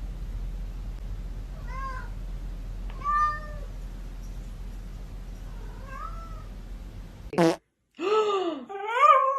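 A cat meowing three times, short and fairly soft, over a steady low hum. Then, after an abrupt cut, louder and longer drawn-out cries that bend down and up in pitch.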